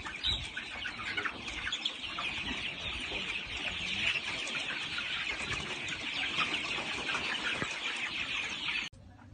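A crowded flock of chickens calling all at once, a dense chatter of many overlapping clucks and cheeps. It cuts off abruptly near the end.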